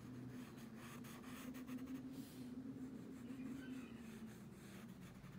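Graphite pencil scratching on drawing paper in short, faint strokes, over a steady low hum.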